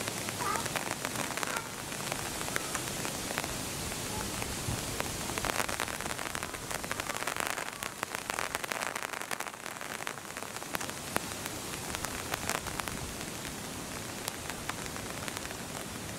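Rain falling steadily, with many single drops ticking sharply on nearby surfaces.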